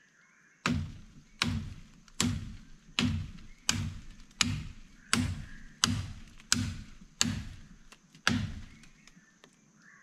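Machete hacking repeatedly into a green forked tree branch: about eleven sharp chopping knocks, roughly three every two seconds, stopping a bit before the end. The wood is hard and the blade is not cutting through easily.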